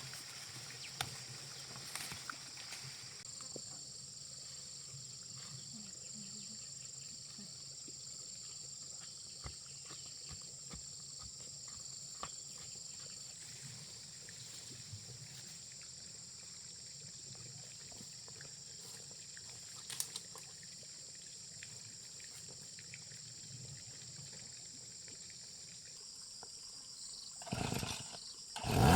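Faint outdoor ambience of insects droning steadily at a high pitch, with scattered small clicks and a short louder rustle near the end.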